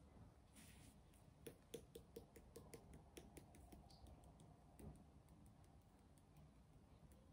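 Faint, quick light clicks and taps, about five a second for a couple of seconds and then sparser, from a small plastic craft bottle being handled and tapped.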